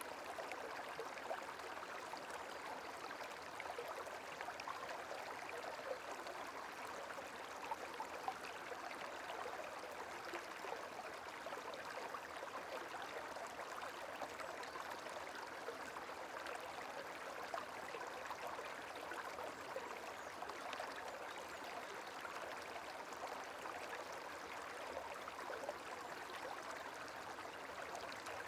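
Gentle running water trickling steadily, with fine dripping texture and a few brief, slightly louder splashes.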